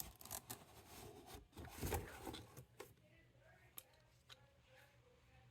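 Faint handling noise: scattered clicks and rustles as a cordless sander and its packaging are handled, busiest in the first three seconds, the loudest about two seconds in.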